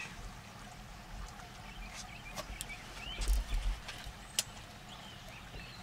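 Rod and reel being worked against a hooked striped bass: a few sharp clicks and knocks from the tackle, a brief low rumble of wind or handling on the microphone, and a few short high chirps, over a faint steady low hum.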